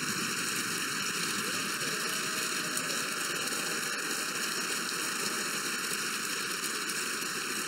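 Members of parliament applauding steadily in a standing ovation: dense, even clapping from a large crowd.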